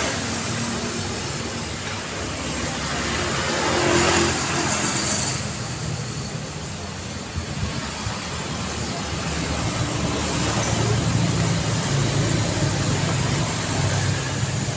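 Road traffic: cars passing with a steady mix of tyre and engine noise. One vehicle passes close, swelling and fading about four seconds in, and a deeper engine hum grows louder in the second half.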